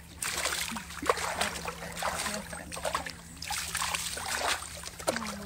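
River water splashing and pouring as a plastic jug is dipped into a shallow river and emptied over a person's head, in irregular splashes.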